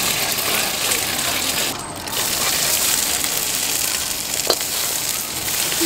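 Egg and bean sprouts sizzling hard in a hot wok as a metal ladle and spatula stir and scrape against it. The sizzle dips briefly about two seconds in, and the ladle strikes the wok with one sharp clink about four and a half seconds in.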